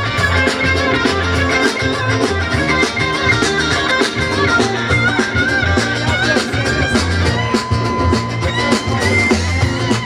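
Live band playing an instrumental section: guitar lead over bass and drum kit.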